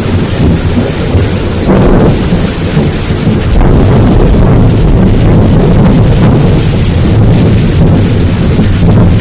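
Heavy downpour with thunder rumbling: a steady rain hiss over a continuous low rumble that swells somewhat from about three and a half seconds in.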